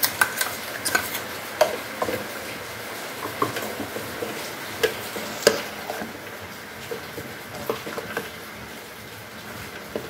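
Steel spoon scraping a mixer jar and stirring thick jackfruit and coconut in a pressure cooker pot: irregular clinks and scrapes of metal on metal, more frequent in the first half and sparser later.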